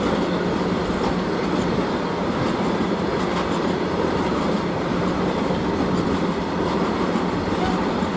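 Train running past, with the steady, even noise of wheels on rails and no horn.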